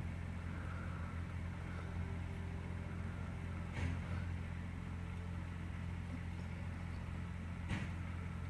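Steady engine hum of a portable light tower's generator. A sharp bang comes about four seconds in and another about eight seconds in as the light tower is struck.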